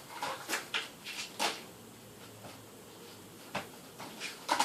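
Short handling noises: several quick rustles and knocks in the first second and a half, a single click about three and a half seconds in, and another brief burst near the end, as slime and its containers are handled.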